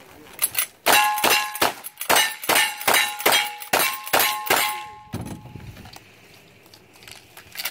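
Lever-action rifle fired in a quick string of about a dozen shots, roughly two to three a second, each shot answered by the ring of a struck steel target. The string stops about five seconds in.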